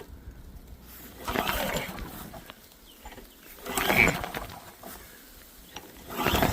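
Three pulls on the freshly replaced recoil starter cord of a Poulan Pro 625 engine, each a short rasp of rope and cranking engine about two and a half seconds apart, the middle one loudest. The engine does not fire.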